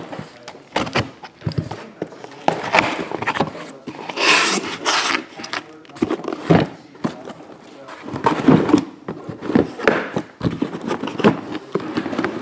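Cardboard shipping case being opened and handled: rustling, scraping and knocking of cardboard flaps and boxes, with a longer hissing scrape about four seconds in.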